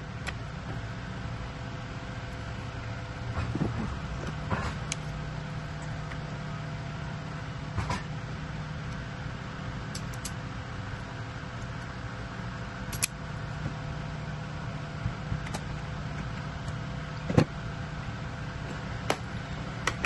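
A steady mechanical hum from a running machine, with scattered sharp clicks and taps as wires and a wire stripper are handled, the loudest click near the end.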